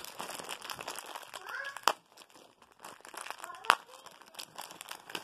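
Plastic wrapper of an Anpanman mini ramune candy packet crinkling as it is handled, with two sharp snaps, about two seconds in and again a little after three and a half seconds.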